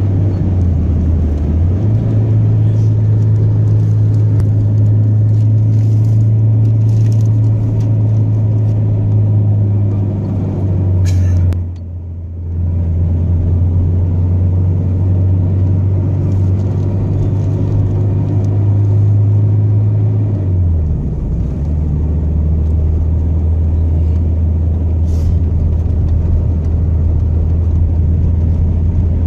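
A moving car's engine and road noise, a steady low drone that steps in pitch a few times. There is a brief dip in loudness about twelve seconds in.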